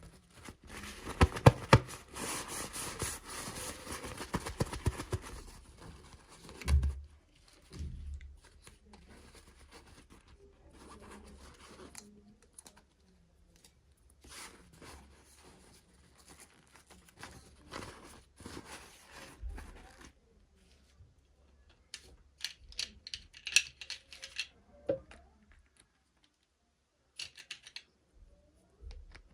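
Toy packaging opened by hand: plastic and paper rustling, tearing and snipping, with irregular clicks and taps. It is busiest in the first few seconds, with a run of sharp clicks later on.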